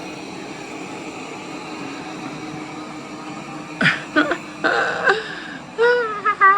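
Eufy L60 SES robot vacuum running steadily on carpet, a low even whirr of its suction motor and brushes. From about four seconds in, a click and a few short voice-like sounds break over it.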